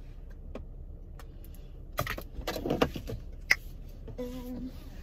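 Rustling and a few sharp clicks of things being handled and moved in a car's cabin, the loudest click about three and a half seconds in, with a short steady tone a little after four seconds.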